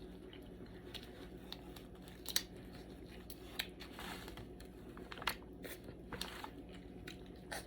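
Cooked blue crab being cracked and picked apart by hand and eaten: quiet, scattered sharp cracks and clicks of shell breaking.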